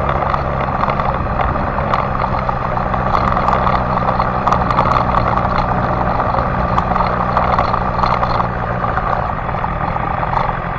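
BMW S1000XR motorcycle's inline-four engine running at a steady low speed on a sandy dirt track, under a constant rushing noise with scattered small clicks. It gets slightly quieter in the last couple of seconds.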